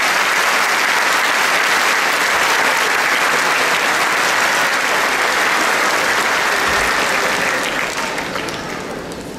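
A large church congregation applauding steadily, the clapping dying down near the end.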